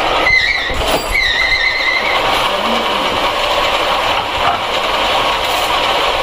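Factory machinery running with a loud, steady noise, with two short high-pitched squeals within the first two seconds.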